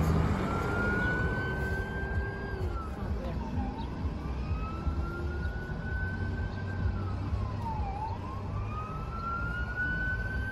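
Emergency vehicle siren in wail mode: each cycle rises slowly to a high pitch over about two and a half seconds, then falls more quickly, repeating about every four seconds. A low, steady car rumble runs underneath.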